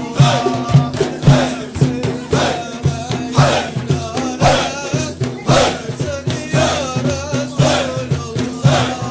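Sufi Naqshbandi zikr: voices chanting in a steady rhythmic pulse, about two beats a second, over a continuous held low tone.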